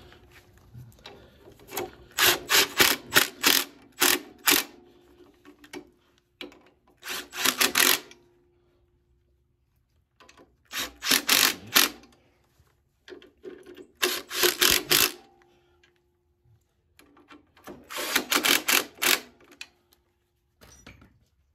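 Cordless impact gun running in five short bursts of rapid hammering, snugging the clutch pressure plate bolts down onto the flywheel.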